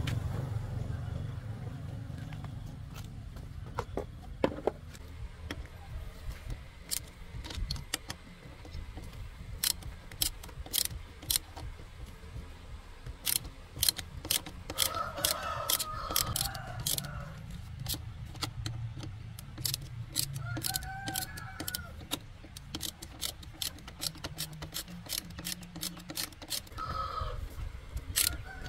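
Hand tools working on old motorbike parts: irregular sharp metallic clicks and taps, some in quick runs, over a low steady rumble, with a few short pitched calls near the middle and end.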